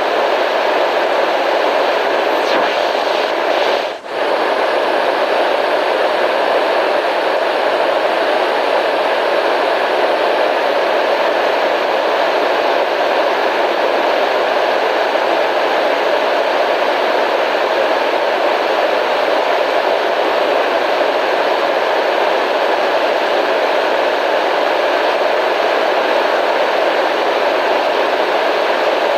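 Steady white noise, an even hiss with no rhythm, dipping briefly about four seconds in.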